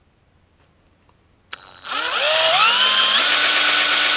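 Cordless drill starting about a second and a half in, its motor whine rising in pitch as it spins up and then holding steady at full speed while the bit bores a bolt hole through a ski.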